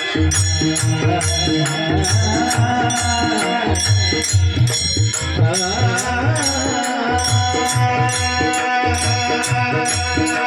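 A Marathi devotional bhajan played on a mridang drum, which keeps a steady deep-toned rhythm. Metallic jingling strokes come about twice a second, and a held melodic line runs over them.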